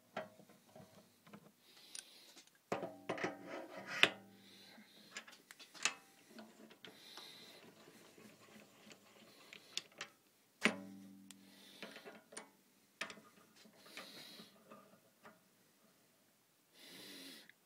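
Scattered metallic clicks, clinks and rubbing as a small drill chuck and a home-made aluminium tool holder are handled and tightened by hand on a metal lathe, with a few louder clattering knocks.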